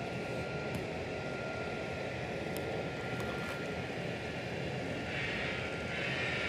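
Loksound DCC sound decoders in model Union Pacific SD70ACE diesel locomotives playing a steady diesel engine drone through their small onboard speakers, growing a little louder about five seconds in.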